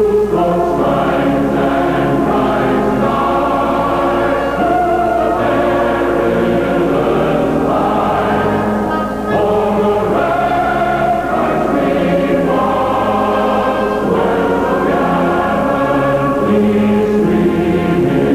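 A choir singing slow, held chords that shift every second or so.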